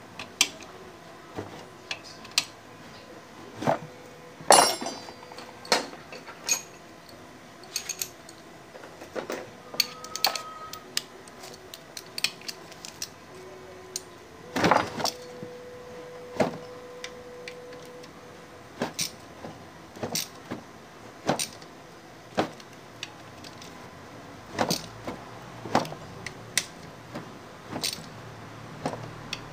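Hand ratchet on a long socket extension tightening the crankcase bolts of an NS150 engine: scattered metallic clicks and clinks about once a second. One clink about halfway through rings on for a few seconds.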